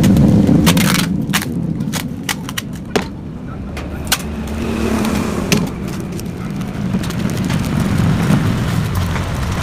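Yamaha RX-King's two-stroke single-cylinder engine running through its reworked exhaust, with a low rumbling note and irregular crackling pops. The note is loudest in the first second.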